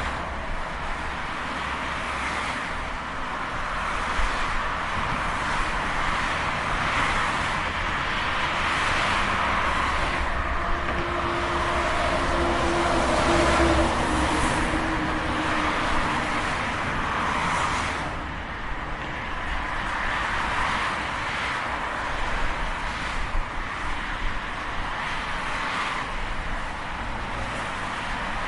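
Steady highway traffic: a continuous rush of tyres and engines, with vehicles swelling and fading as they pass. The loudest pass comes about halfway through, with a faint falling engine tone.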